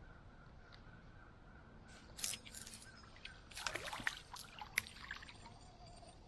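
A few seconds of short, crackling splashes and sloshes at the water's edge, bunched together near the middle of the stretch, against a quiet background.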